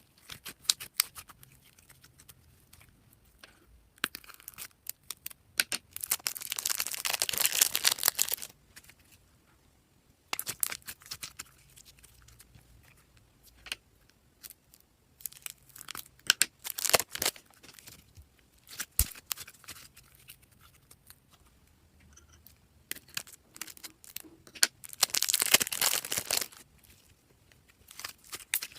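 Slime being mixed and squished by hand: scattered sticky clicks and pops, with two longer spells of dense crackling, one a quarter of the way in and one near the end.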